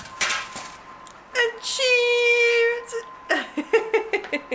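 A woman's high drawn-out vocal exclamation, held steady for about a second and a half, followed by bursts of giggling, after a short handling noise from the pan and parchment at the start.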